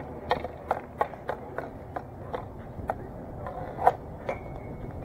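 Hockey stick blade tapping a plastic street hockey ball in a steady rhythm, about three taps a second, as the ball is carried in on skates, then a louder crack of the shot near four seconds in. A short high ringing tone follows the shot.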